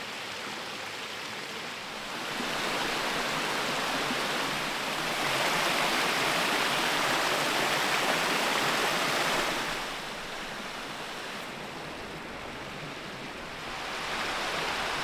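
A stream running steadily, an even rush of water that gets louder and quieter in steps a few times.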